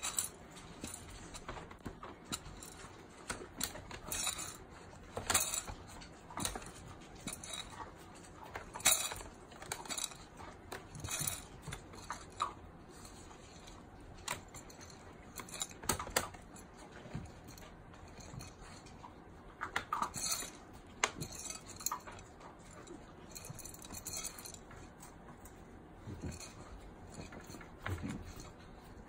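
Schnauzer eating dry kibble from a metal bowl: irregular clinks and rattles of kibble and teeth against the bowl.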